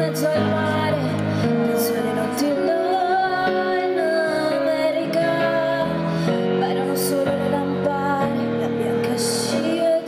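A young woman singing into a microphone, holding long, gently wavering notes over sustained instrumental chords.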